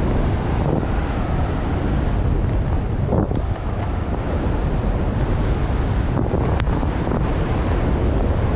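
Wind buffeting a skier's action-camera microphone as he skis fast through deep powder, a continuous low rumbling rush. Under it is the hiss of the skis cutting through the snow, swelling and fading with the turns.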